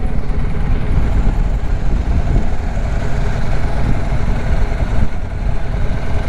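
BMW R1250GS Adventure's boxer-twin engine idling at a traffic light, under a steady, irregular low rumble of wind on the microphone.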